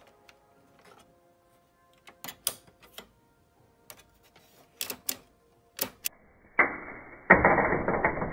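Plastic parts of a Sony MHC-RX99 mini hi-fi's mechanism clicking and snapping under the fingers: about a dozen sharp clicks, in small groups, then a loud rubbing, scraping noise from about two-thirds of the way in as the part is handled and moved.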